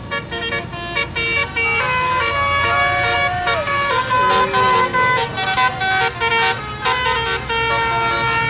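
Basuri 'telolet' musical horns of two buses, a Rama Mandiri and an Ervin Ayu, sounding loud competing tunes of quick stepped notes that overlap one another, with a sliding note a few seconds in.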